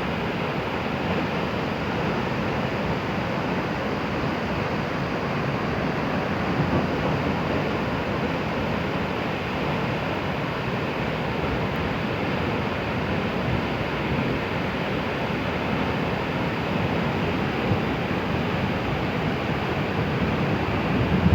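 Heavy water rushing in a steady, even torrent, as a waterfall or river in flood after the disaster.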